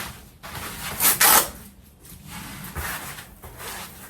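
Scraping and rubbing as parts of a plastic Halloween animatronic prop are handled, with one loud swishing scrape about a second in and softer rubbing after it.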